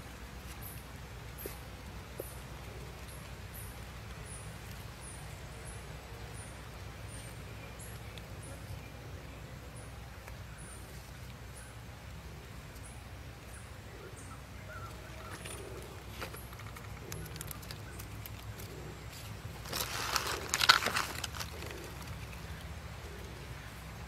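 Dry leaves crackling and rustling in a short, loud burst about twenty seconds in as a gloved hand works in a leaf-litter nest. Under it, outdoor ambience with a faint, high chirp repeating about every half second.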